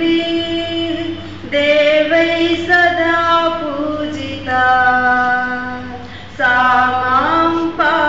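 A woman singing solo without accompaniment, holding long, drawn-out notes with slow slides between them.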